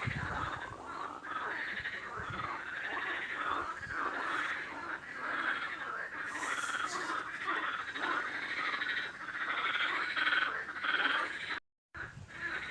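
A chorus of many frogs calling at once, with dense overlapping croaks. The sound cuts out completely for a moment near the end.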